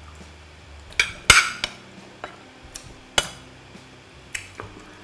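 Metal spoon clinking and scraping against a plate: a handful of separate sharp clicks, the loudest just over a second in.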